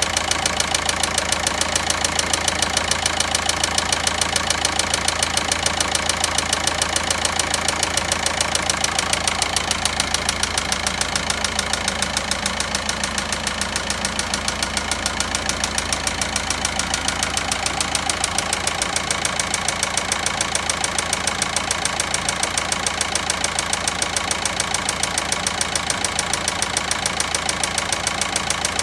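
Volkswagen Passat 1.9 diesel engine idling with a rapid, even knocking clatter, the abnormal engine noise the video is about.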